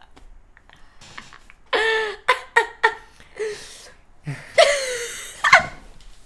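Laughter: a burst of short repeated laughs about two seconds in, and another round near the end.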